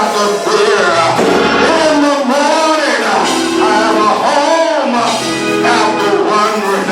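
Gospel song: singing over instrumental accompaniment with a bass line.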